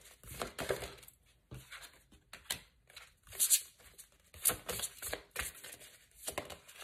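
A deck of divination cards being handled and shuffled, with irregular short rustles and light taps.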